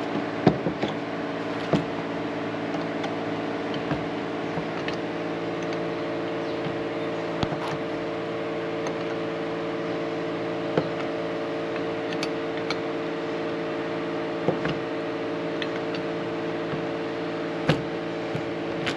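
Steady machine hum with several even tones, with occasional sharp clicks and knocks from work on metal fittings.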